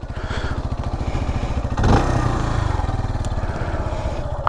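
2023 CFMOTO Papio's 126cc single-cylinder engine idling with a steady, even putter, picked up through the rider's helmet-mounted microphone. About two seconds in there is a brief louder rush of noise.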